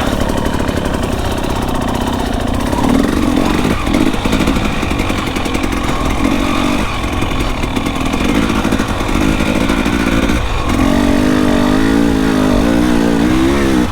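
Dirt bike engine running while being ridden, the revs rising and falling. From about ten seconds in, the engine note turns clearer and wavers up and down with the throttle.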